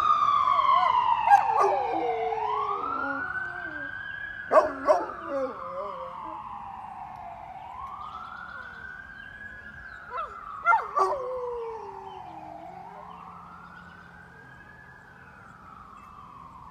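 An emergency-vehicle siren wails in slow rising-and-falling sweeps, fading steadily as it passes. A Great Pyrenees howls along with it in three bouts: about a second in, around five seconds, and around eleven seconds.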